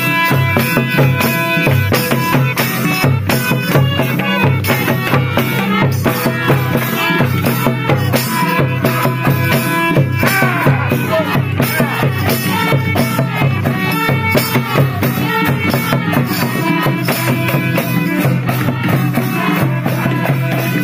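Live folk music: a harmonium plays a sustained melody over a steady hand-drum beat and the jangling jingles of a tambourine.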